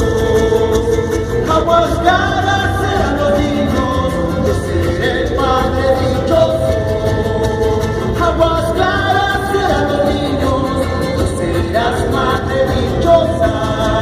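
A live folk band playing a song, with voices singing held, gliding melody lines over the accompaniment.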